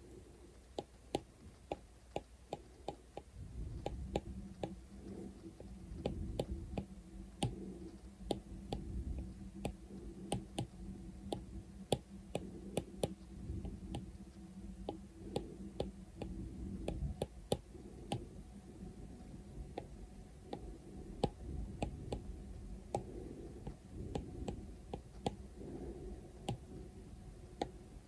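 Apple Pencil tip tapping and clicking on the iPad's glass screen while painting, in irregular sharp clicks a few times a second. A soft rubbing of strokes and a faint steady low hum lie underneath.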